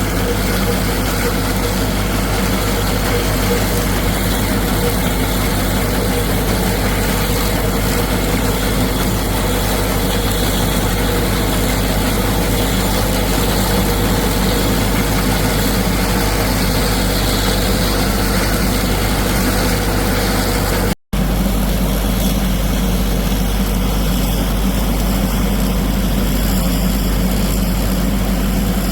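Diesel engine of a compact tractor running steadily under load while pulling a PTO-driven drum mower through thick hay. The sound cuts out for a moment about two-thirds of the way through.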